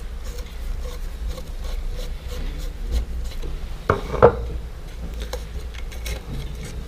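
A screwdriver turning a small screw out of a plastic bicycle LED tail light: faint scraping and small clicks, with a couple of sharper knocks about three and four seconds in as the tool is handled and laid on the wooden table.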